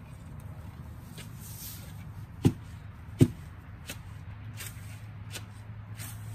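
Repeated short strokes of a hand tool cutting and hacking long grass and weeds, about one every three-quarters of a second, with two heavier thumps between two and a half and three and a quarter seconds in, over a steady low hum.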